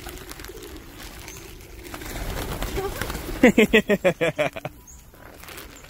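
A flock of feral pigeons crowding around scattered feed, cooing and flapping. A little past the middle comes the loudest sound, a quick run of about ten loud pulses lasting just over a second.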